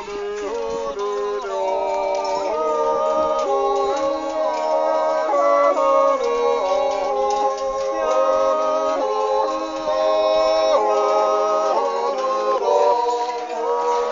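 A group of Silvesterchläuse singing a Zäuerli: several voices yodeling without words in held chords that change together every second or so.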